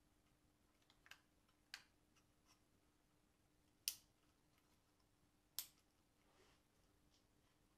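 Quiet plastic clicks of lambda sensor wiring connectors and clips being handled and snapped into place, with two sharper snaps around four and five and a half seconds in.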